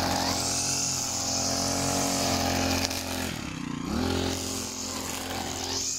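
Petrol brush cutter running at high revs while trimming grass, a steady high engine note with a buzzing edge. A little over halfway through the note sags and climbs back up as the engine slows and picks up again.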